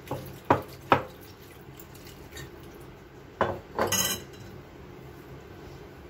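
Spoon and bowls clinking while curds are handled: two sharp knocks within the first second, then another knock and a brief scraping clatter about three and a half seconds in.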